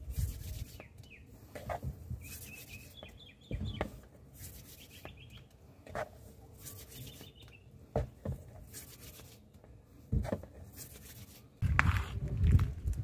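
Small birds chirping in the background, with scattered knocks and handling noise. A louder low rumble comes in near the end.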